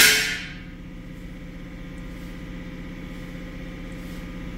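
An engine idling steadily with a low, even hum. A short burst of noise at the very start dies away within about half a second.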